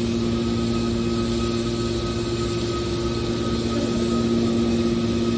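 Hydraulic scrap metal baler's power unit running with a constant, steady hum of several fixed tones.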